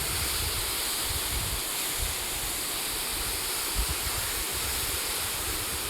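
Waterfall: a steady rush of water falling off the edge of a cliff.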